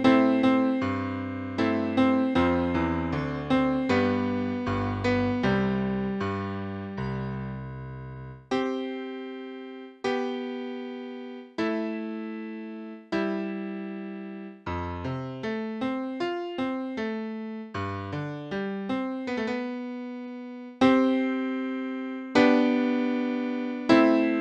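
Solo piano-style keyboard music. For the first eight seconds or so, chords sound over a moving bass line. After that, single chords are struck about every second and a half and left to die away, with a quicker run of notes in the middle.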